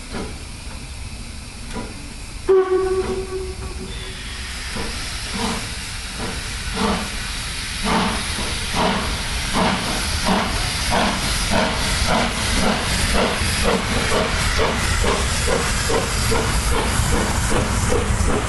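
ČSD class 475.1 steam locomotive 475.179 gives a short whistle blast about two seconds in, then starts away with a train. Its exhaust beats start slow and quicken to about three a second, over a steady hiss of steam from the cylinders.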